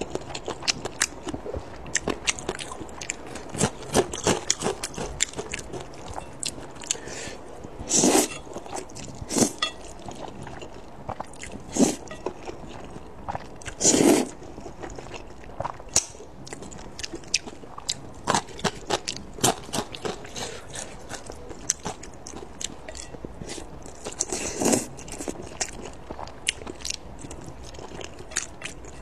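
Close-miked eating of sauced noodles and dumplings: steady wet chewing and mouth clicks, broken by a few loud noodle slurps, the longest about 14 seconds in.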